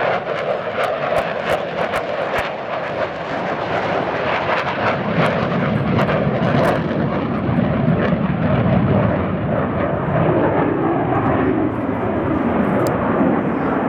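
A fixed-wing aircraft flying by with loud engine noise, crackling in the first half. The higher sounds fade after about six seconds while the low rumble carries on.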